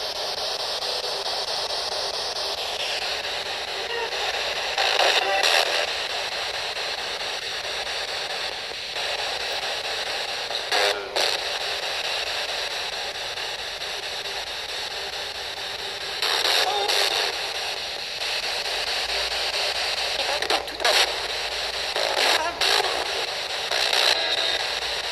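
P-SB11 spirit box, a frequency-sweeping radio, hissing with static as it scans, with short louder snatches of broadcast sound breaking through several times.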